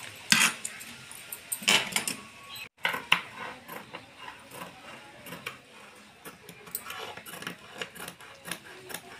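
Tailor's chalk scraping along cloth as a cutting line is traced, with rustling of the fabric being handled. A few sharper rustles and knocks come in the first three seconds.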